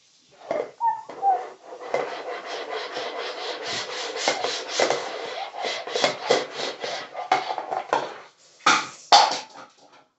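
A plastic bowl is rubbed and scraped back and forth on a plastic high-chair tray, a fast run of short scrapes, with two louder strokes near the end.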